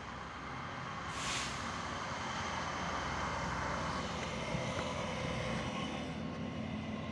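NEB diesel multiple unit arriving at a station, its diesel engine running with the rumble of the wheels on the track and getting gradually louder as it pulls in. A brief hiss about a second in.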